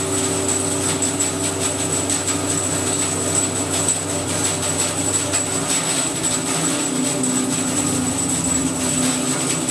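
Grizzly G0513X2 17-inch bandsaw running with no cut: a steady motor and wheel hum with a thin high whine over it. There is light rubbing, which the owner puts down to the blade touching the thrust bearing before the guides are adjusted.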